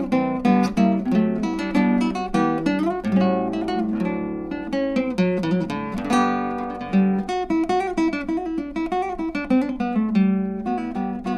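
Background music: acoustic guitar, quickly plucked and strummed.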